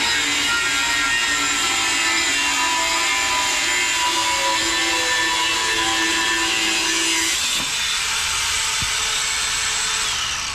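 Angle grinder with a cut-off wheel cutting through the steel shell of a small hermetic pot compressor: a steady grinding whine that stops near the end as the cut breaks through.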